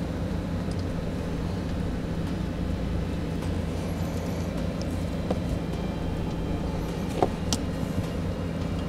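A steady low hum with a few short clicks and snaps from hand tools as wire ends are stripped and blue butt connectors are crimped on; the sharpest snaps come about two-thirds of the way through.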